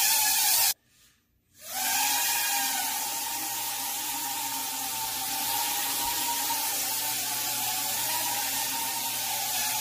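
Small quadcopter drone's propellers and electric motors whining with a steady hiss in flight. The sound cuts out for about a second near the start, then comes back and holds steady.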